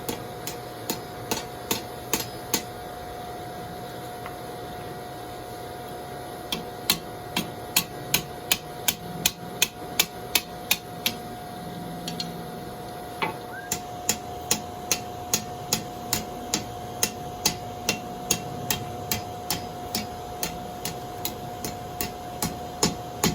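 Blacksmith's hand hammer striking hot steel on an anvil while forging a fire poker, in runs of about two to three blows a second with two short pauses. A steady high hum runs underneath.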